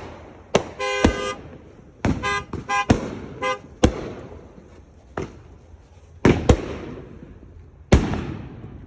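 Fireworks going off one at a time, about seven sharp bangs, each followed by a rolling echo. In the first few seconds a car horn gives several short toots between the bangs.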